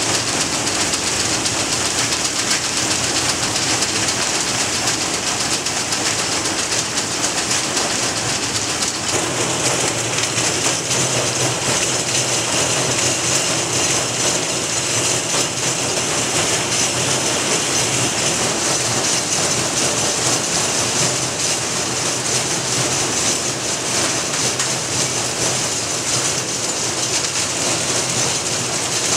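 Dense, steady rattling of many small lighter parts shaken on vibrating loading trays, which settle the parts into the holes of perforated plates. The texture of the rattle shifts slightly about nine seconds in.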